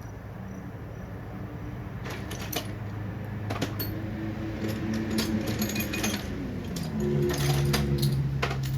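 Metal hand tools clinking and clicking as a socket extension and Torx bit are picked out and fitted, over a low, steady hum that drops in pitch about seven seconds in.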